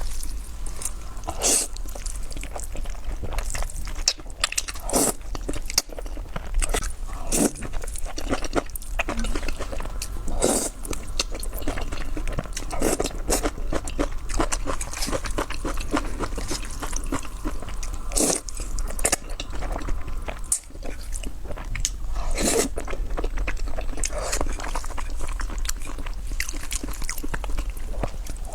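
Chewing and crunching while eating kimchi noodles: a steady run of small wet clicks, with louder crunchy bites every few seconds.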